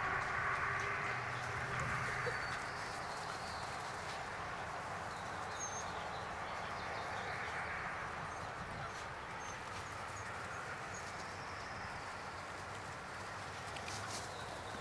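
Steady outdoor background noise with a few faint, short high bird chirps.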